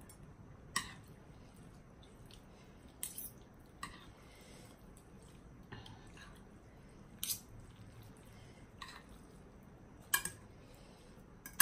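Eating sounds: about seven short, wet clicks and smacks, scattered through the stretch, over a quiet background.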